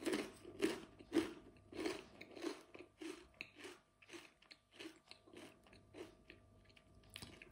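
Crunchy chewing of a mouthful of baked legume-flour snack sticks, about two crunches a second, loudest at first and growing fainter.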